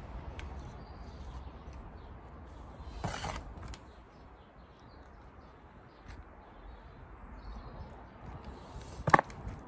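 A metal hand trowel scooping compost and tipping it into plastic seed module trays, with a rustling pour and scrape about three seconds in. A single sharp knock near the end is the loudest sound, over a low steady rumble.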